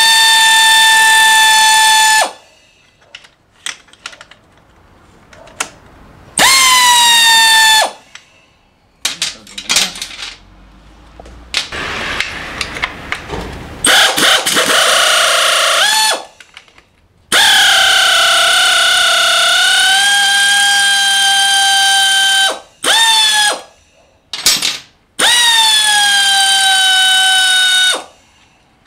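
A power tool's electric motor whining in repeated runs of a few seconds each, each run rising quickly in pitch as it spins up and dropping away as it stops, with short clicks and clinks between runs. It is backing out the engine-mount bolts of a Harley-Davidson Sportster 1200.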